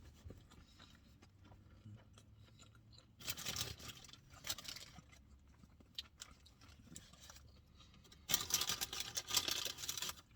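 A person eating a burger: chewing, with two louder spells of rustling, about three seconds in and again near the end.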